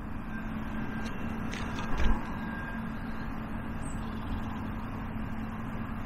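A steady low mechanical hum, like a distant engine, over a constant rumbling outdoor background, with a short thump and a couple of clicks about two seconds in.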